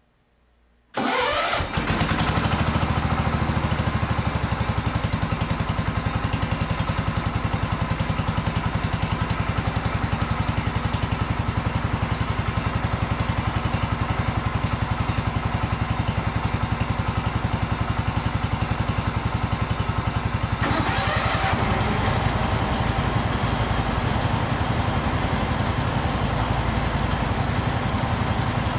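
Garden tractor engine starting about a second in and running at a steady idle. About twenty seconds in, a second tractor engine starts and runs along with it.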